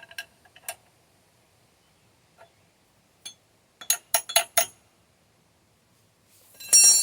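Metal tool parts clinking and clicking as a bushing press and socket are handled and lined up on the control arm: scattered clicks, a quick run of four sharp clinks about four seconds in, and a short, loud, ringing metallic clatter near the end.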